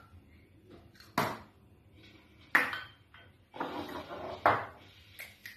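Eggs being cracked on the rim of a mixing bowl: three sharp knocks and clinks, with a short rustling scrape between the last two.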